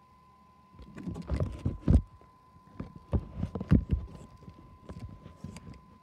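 Handling noise on a phone's microphone: a run of irregular muffled thumps and rubbing with a few sharp clicks, loudest about two seconds in and again near the middle, over a faint steady high whine.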